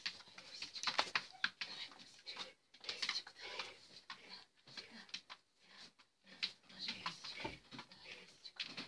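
A black Labrador moving about while being petted: irregular clicks and short rustling noises.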